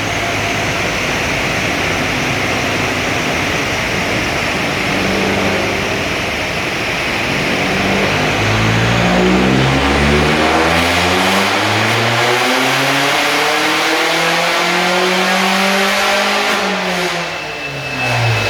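Straight-piped Vauxhall Astra VXR's turbocharged four-cylinder engine running steadily, then pulling up through the revs with its pitch climbing for several seconds from about halfway, and dropping back near the end. The owner puts its running down to a misfire or boost leak.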